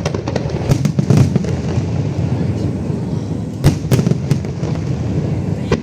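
Fireworks display going off: many sharp bangs and crackles at irregular moments over a continuous low rumble of further bursts.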